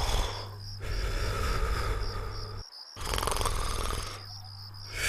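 Cartoon snoring: a rasping, rattling snore on the in-breath, then a long breathy out-breath, repeating about every four seconds.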